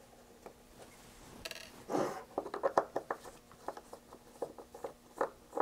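Screwdriver working screws out of a radio's metal case: a quick string of sharp metallic clicks and short scrapes that starts about a second and a half in.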